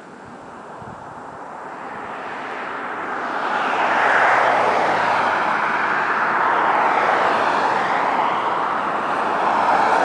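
Road traffic passing on a highway: tyre and engine noise swells over the first four seconds and stays loud, shifting slightly as cars go by.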